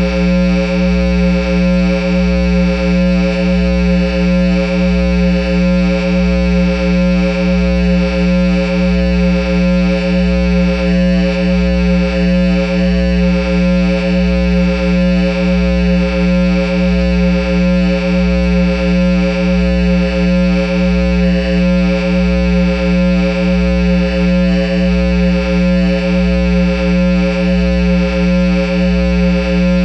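Idle Line 6 amp head and Peavey speaker cabinet humming with nothing played: a loud, steady electrical hum and buzz with a slight regular throb of about one a second.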